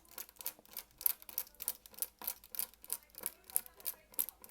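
Small screwdriver backing a tiny screw out of a Samsung Galaxy S9 Plus, making a rapid, even clicking of about four to five clicks a second.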